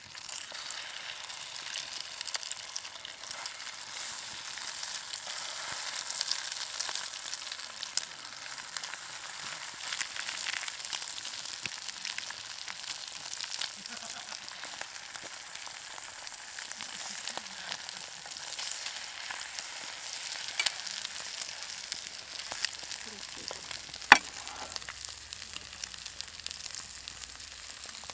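French toast frying in a GSI Pinnacle nonstick frying pan: a steady sizzle with scattered small pops. One sharp tap a few seconds before the end.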